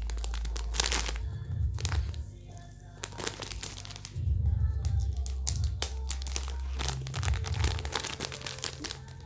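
Thick, soft plastic pouch crinkling and crackling as hands pull at its stuck double zip seal, which will not open, over background music with a repeating low beat.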